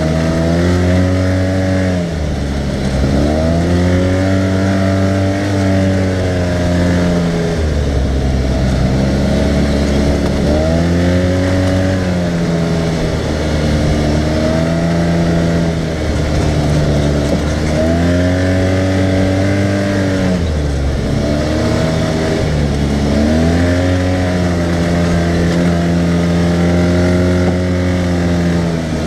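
Arctic Cat side-by-side's engine running on the move, its pitch dropping and climbing back up about six times, every four to five seconds.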